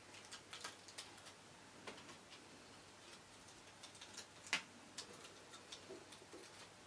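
Faint, scattered small clicks and crackles of acetate and card being handled as a self-adhesive piece is peeled off and pressed into place by hand, with one sharper click about four and a half seconds in.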